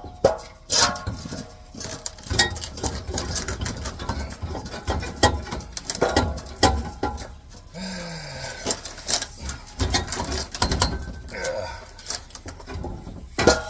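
Repeated metal knocks, clanks and scrapes as a new exhaust muffler and tailpipe are wrestled into place under a pickup, the pipe catching on the leaf spring and hangers. A short low grunt of effort about eight seconds in.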